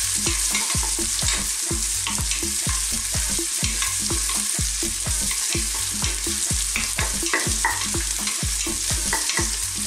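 Garlic and red onion sizzling in hot oil in a stainless steel pressure cooker pot, with a wooden spatula stirring and scraping against the pot bottom about three times a second.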